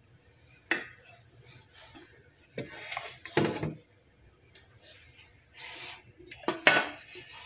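Kitchen handling noises: a spatula knocking and scraping against a stainless steel mixing bowl, a few separate knocks, then a louder, longer scrape and clatter near the end as a metal baking tray is moved on the counter.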